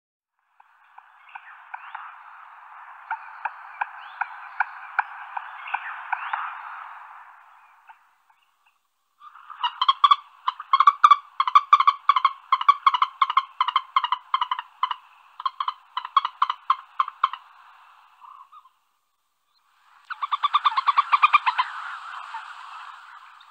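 Frogs croaking in long trains of rapid pulses, in three bouts separated by short pauses; the middle bout is the loudest, with sharp, distinct pulses.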